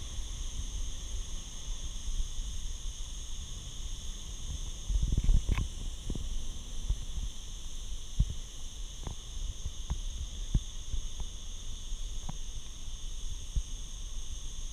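Handling rumble and scattered soft knocks from a handheld action camera as its carrier walks, over a steady high-pitched hiss. The knocks are busiest about five seconds in.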